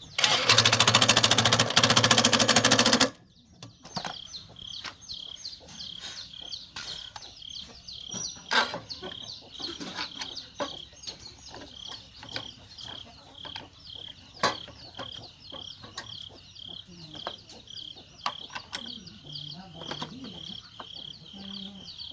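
A small engine runs loudly for about three seconds and then cuts off suddenly. After that a high-pitched chirp repeats steadily about twice a second, with scattered clicks.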